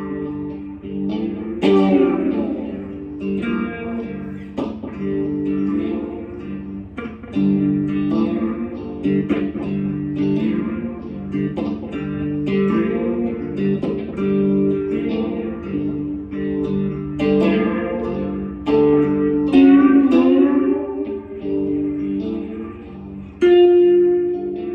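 Slide guitar played solo: plucked notes and chords, with the pitch gliding up and down between notes several times.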